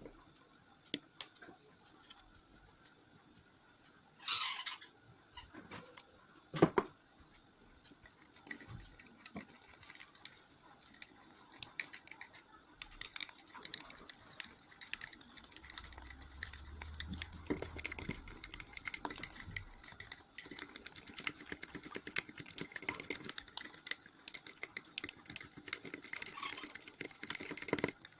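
Slime being stirred and handled in a container: scattered clicks and taps at first, then from about halfway through a fast, continuous run of small clicky, wet-sounding taps.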